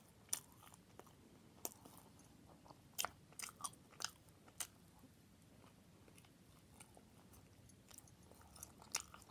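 Close-miked mouth sounds of a person chewing a roast turkey, ranch and bacon sandwich: scattered wet smacks and clicks, busiest in the first half and again near the end, with quiet between.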